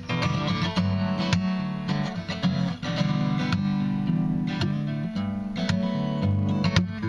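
Acoustic guitar being finger-picked and strummed, playing a song's instrumental introduction, close to the microphone.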